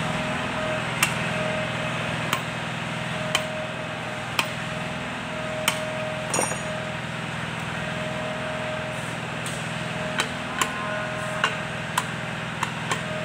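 Sharp metal-on-metal taps, about a dozen at irregular intervals and more frequent near the end, as a hooked pick and a striking tool work the old oil seal out of a GL300 tractor's front axle housing. A steady low mechanical hum runs under the taps.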